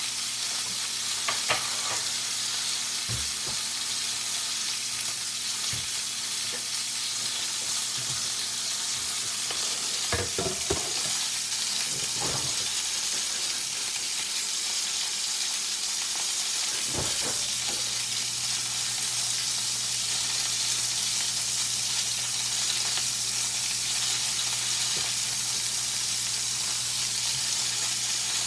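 New York strip steak sizzling in hot oil in a frying pan: a steady hiss, with a few faint clicks around ten and seventeen seconds in.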